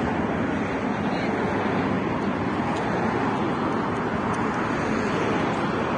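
Steady road traffic noise: a continuous, even hum of passing vehicles with no single event standing out.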